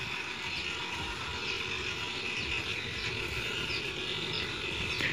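Faint background ambience: a steady hiss with a few short, falling high chirps scattered through it, like small creatures outdoors.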